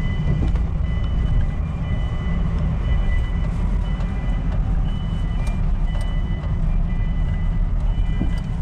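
Low, steady rumble of a VW T3 bus moving slowly through a ferry's enclosed car deck, heard from inside the cab. Over it runs a thin high tone, with a second, higher tone sounding on and off.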